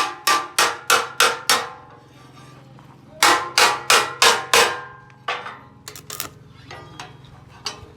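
Hammer striking metal in quick blows with a metallic ring, about three a second: a run of about six, a pause of over a second, another run of about six, then a few lighter, scattered taps.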